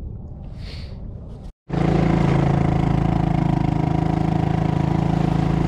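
Small boat motor running at a steady speed as the kayak moves across choppy water. It starts abruptly about a second and a half in and holds one even pitch.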